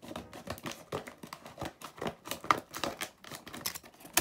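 Packaging of a punch pliers and eyelet set crinkling and crackling as it is handled and pulled open, in quick irregular crackles with a louder rustle near the end.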